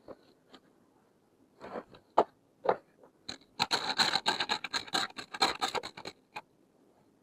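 Plastic toy medical-kit pieces being handled: a few separate knocks and clicks, then about three seconds of dense, rapid scraping and rattling.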